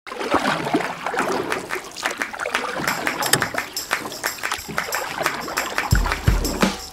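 River water splashing and trickling in short, repeated strokes. Near the end a deep, pulsing music beat comes in.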